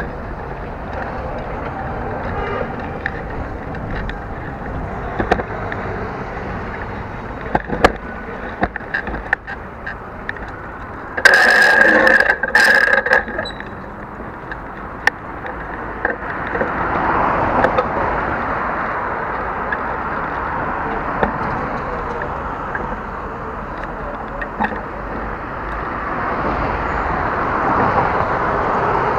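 Riding noise picked up by an action camera's bare microphone, without its waterproof housing, on a bicycle's handlebars: a steady rumble and hiss of the ride and street traffic, with small knocks and rattles from bumps. About eleven seconds in, a loud shrill sound lasts about two seconds in two parts.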